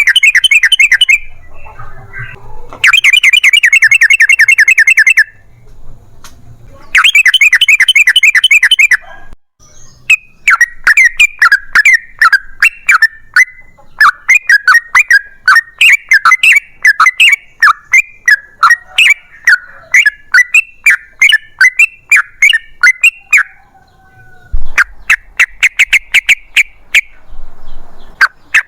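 Yellow-vented bulbul (trucukan) calling loudly in bubbly chattering phrases. Three fast rattling rolls come first, then a long run of quick separate chatters, then one more roll near the end.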